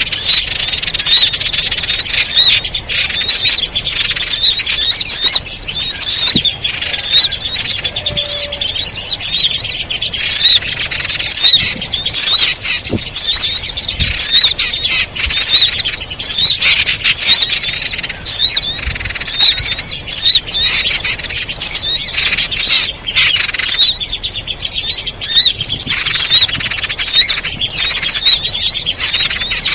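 Bird-lure recording of many small birds chirping at once: a dense, loud, unbroken chatter of quick high-pitched chirps overlapping one another.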